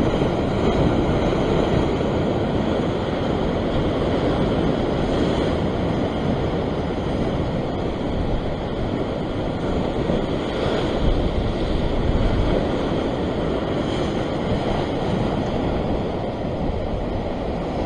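Heavy sea surf breaking and washing over sandstone rock ledges: a steady, continuous rush of churning water.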